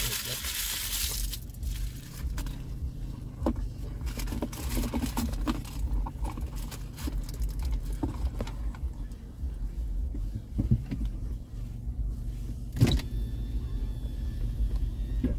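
Low steady hum of a car idling, heard from inside the cabin, with scattered small clicks and rattles and a sharper knock near the end. A short rush of hiss opens the sound.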